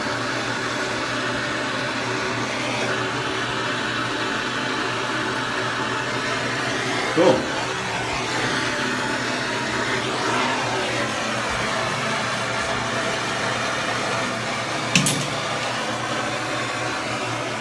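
Handheld blowtorch flame running steadily while it heats a copper pipe joint to melt solder into it. A sharp click comes near the end.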